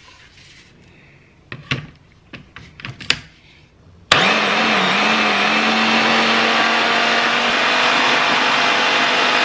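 A few light plastic clicks and knocks as the motor head is fitted onto a food processor's lid. About four seconds in, the food processor's motor starts suddenly and runs steadily with a held whine, blending corn fritter batter of corn, flour, eggs and spring onion.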